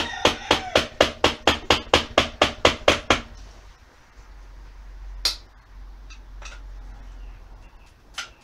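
A quick run of about fifteen hammer taps on metal, roughly five a second, each with a short metallic ring, that stops after about three seconds; one more single knock comes about five seconds in. The tapping goes with freeing the seized starter motor from the Yamaha XJ550's cast engine case.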